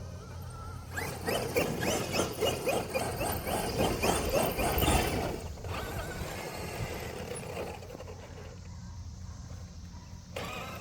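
Traxxas XRT electric RC truck's motor whining as it is revved up and down in quick bursts for about four seconds from about a second in, then running quieter and steadier.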